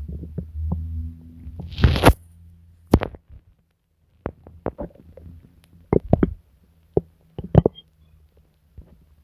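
Human stomach gurgling and rumbling from an upset stomach: a low rumble in the first second or so, a louder burst about two seconds in, then scattered short pops and gurgles with quiet gaps between.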